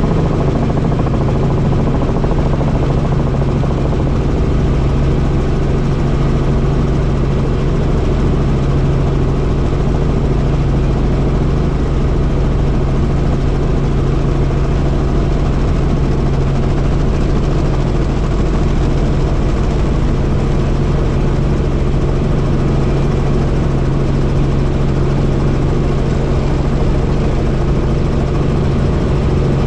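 Helicopter engine and rotor running steadily in flight, a loud, unchanging low hum.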